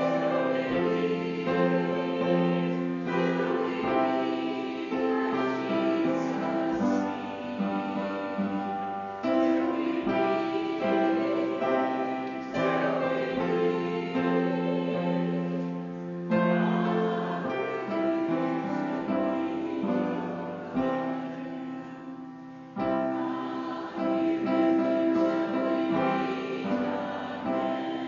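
Church music: piano with voices singing, in long held chords that change every few seconds.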